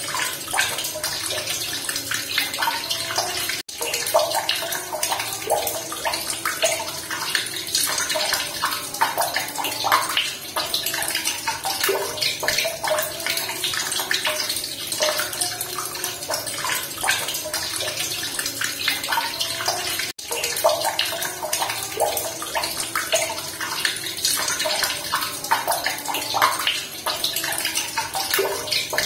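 Running water splashing and pouring steadily, a dense close-up trickle and splatter, cutting out for an instant twice, about three and a half seconds in and two-thirds of the way through.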